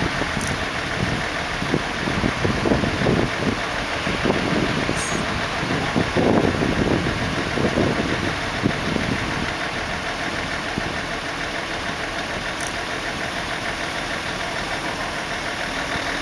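A crane's diesel engine running steadily during a lift, louder and more uneven through the first half, then settling to an even drone.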